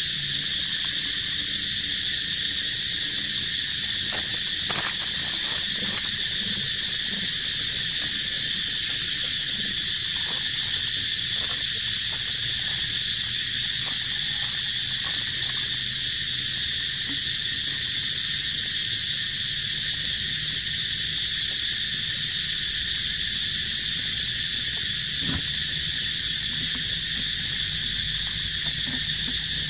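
Steady, dense chorus of insects, a high-pitched pulsing hum that does not let up, with one faint click about five seconds in.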